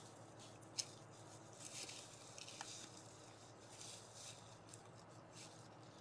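Faint, scattered rustling and crunching of deer feeding and stepping in dry leaf litter, with one sharp click about a second in.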